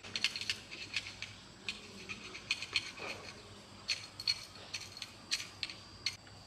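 Irregular light clicks and rattles of small hard parts being handled, with a dozen or more sharp ticks spread over several seconds and a few louder clacks around the middle and toward the end.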